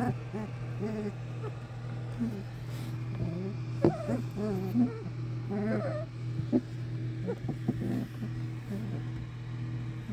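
English springer spaniel puppies whimpering and squeaking in many short, wavering cries over a steady low hum, with a few sharp clicks, the loudest about four seconds in.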